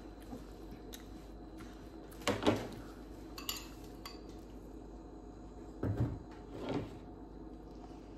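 A spoon scraping and clinking against a plate as food is scooped up, in a few short scrapes, the loudest about two and a half seconds in and two more around six to seven seconds in.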